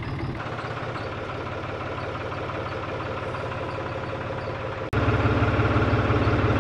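New Holland tractor's diesel engine idling steadily. About five seconds in it breaks off for an instant and comes back louder.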